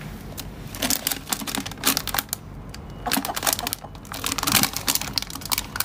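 Plastic bag of mealworms being crinkled inside a bucket, crackling in several bursts: the rustle the hens know as the sign of a mealworm treat.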